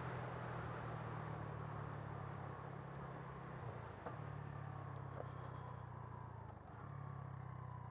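Single-cylinder 125cc four-stroke motorcycle engine, a copy of the Suzuki GN125 engine, running steadily under way. Its note dips briefly about four seconds in and again near seven seconds.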